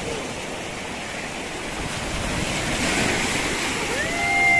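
Small waves breaking and washing over a rocky, shallow shoreline: a steady rush of surf that swells about three seconds in. Near the end a person's voice calls out in a long, slowly falling note.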